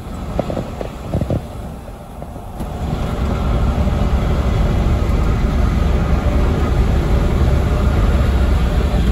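Mercedes-Benz 1626 coach on the move: a steady rumble of engine and road noise. A few light knocks come in the first second and a half, and about two and a half seconds in the noise jumps up sharply and stays loud.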